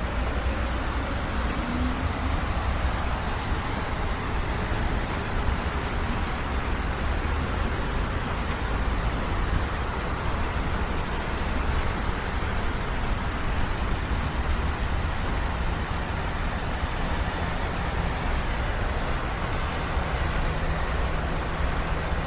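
Steady rain falling, an even hiss over a constant low rumble, with a faint low hum coming in about two-thirds of the way through.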